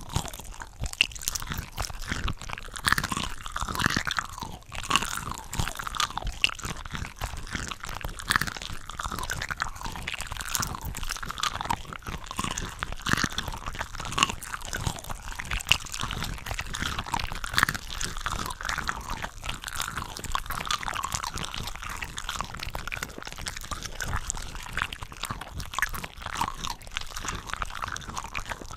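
Close-miked chewing and biting of cooked shrimp, with several eating recordings layered over one another, so the bites and mouth sounds run on densely without a pause.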